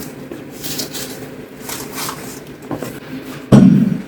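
Scrapes and rustles of parts being handled, then one loud, heavy thud about three and a half seconds in.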